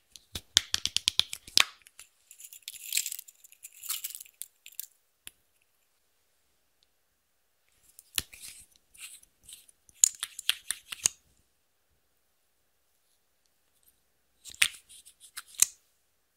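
Slime being pressed and worked by hand, making rapid sticky clicks and crackles in three short spells with silence between. After the first spell comes a couple of seconds of softer, hissy crunching.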